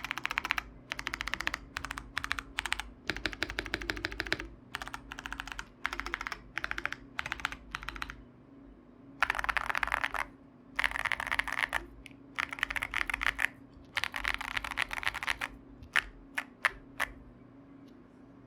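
Gas67 mechanical keyboard with factory-lubed Tecsee Ice Mango tactile switches, foam-dampened case and Mengyu-profile clone keycaps, typed on in fast bursts with short pauses, giving a deep, muted "thocc". Near the end come four single keystrokes one after another.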